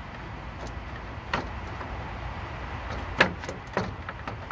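Handling noise from the plastic radiator fan shroud being worked loose: a few short clicks and knocks, the two loudest about a second and a half in and about three seconds in, over a steady low hum.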